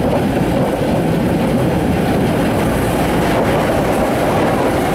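Open-air tourist rail cart running along the old track, a steady, unbroken running noise of wheels on rails and drive. It passes from the open cutting into a stone-lined tunnel.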